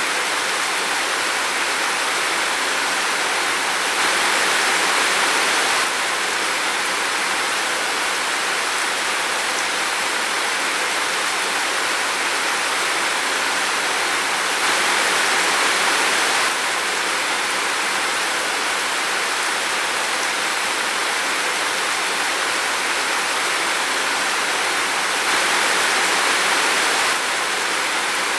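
Steady rain: an even hiss that briefly swells louder three times, about ten seconds apart.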